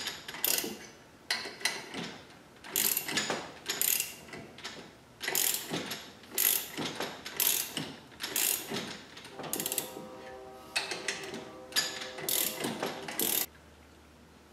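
Hand ratchet wrench clicking in short back-and-forth strokes about once a second, working the gear puller against a transmission gear, with a brief metallic ring about ten seconds in. The ratcheting stops near the end.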